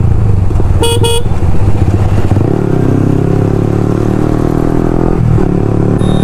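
Motorcycle engine running under way, with a short vehicle-horn honk about a second in.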